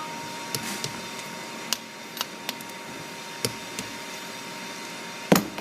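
Torque wrench being worked on the clamp's U-bolt nuts: scattered light metallic clicks, then one sharp, loud click near the end.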